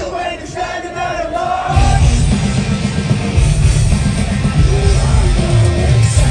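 Live rock band with distorted electric guitar, drums and vocals, heard from the crowd at a loud open-air show. The bass and drums drop away for the first couple of seconds under a sung line, then the full band comes back in hard.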